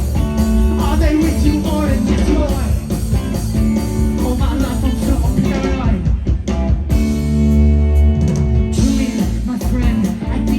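Live rock band playing: electric guitar, bass guitar and drums. About two thirds of the way through, the band holds a sustained chord over a heavy bass note, and then the drums and cymbals come back in.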